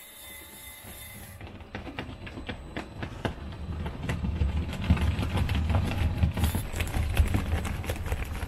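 Radio-controlled scale Cat D6T bulldozer crawling over sand, its tracks clattering in rapid clicks over a low rumble from its drive, growing louder as it comes close.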